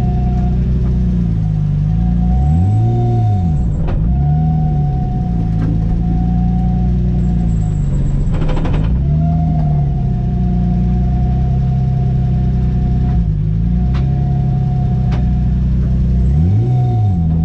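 Renault Mégane V6 Trophy race car's 3.5-litre V6 running at low revs, heard from inside the car, with three short rises and falls in revs: about three seconds in, near the middle, and near the end.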